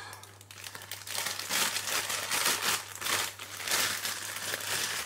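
Thin clear plastic bag crinkling in irregular bursts as it is pulled off a camera lens by hand.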